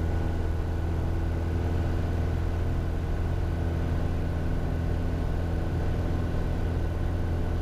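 Piper Warrior's four-cylinder piston engine and propeller running steadily at takeoff power during the takeoff roll, an even drone with no change in pitch.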